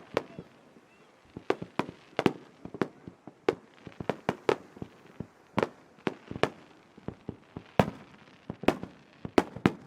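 Fireworks shells bursting in an irregular rapid series of sharp bangs, often several a second, each followed by a short echo.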